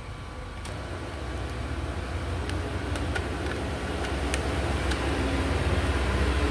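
A steady low rumble that swells gradually louder, with a few faint small clicks over it.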